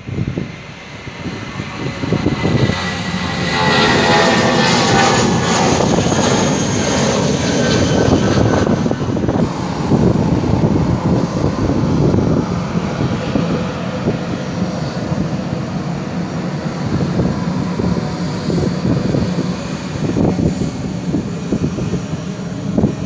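Jet engines of an Airblue airliner taxiing past: a loud, steady rush with a high whine that slowly falls in pitch a few seconds in. The sound builds over the first few seconds, then holds.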